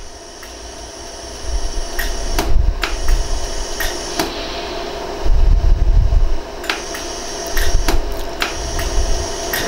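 Jewelry laser welder (100-joule iWeld) firing single pulses to blend a new prong into a gold ring, each shot a sharp snap, about a dozen at irregular intervals over a steady hum.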